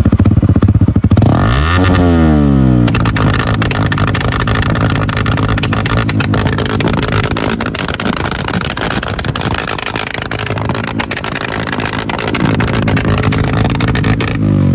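Yamaha R15's single-cylinder engine revved hard through a full-system aftermarket exhaust, held high for most of the time, with the revs sweeping up and down about two seconds in and again near the end. Rapid crackling pops run through it: unburnt fuel backfiring in the exhaust.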